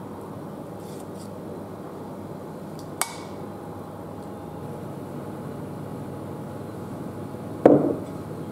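A metal spoon scooping skyr yogurt into a ceramic bowl. The spoon clinks sharply against the bowl once about three seconds in, leaving a short ring, and a louder, duller knock follows near the end, over a steady low hiss.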